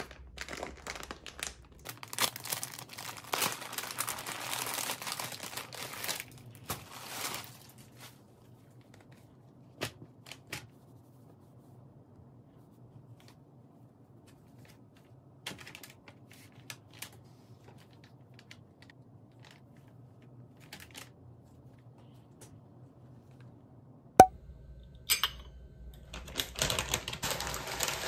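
Plastic mailer bag crinkling and rustling as it is cut open with scissors and a knit cardigan is pulled out. This is followed by quieter handling with scattered small clicks. Near the end there is a sharp click, then more noisy handling.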